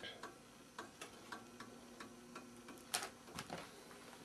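Faint, quick ticking clicks, about three a second and not quite even, with a louder knock about three seconds in.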